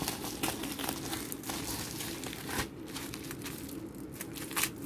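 Plastic packaging crinkling and rustling in irregular crackles as hands pull open and smooth out a bubble-lined plastic mailer.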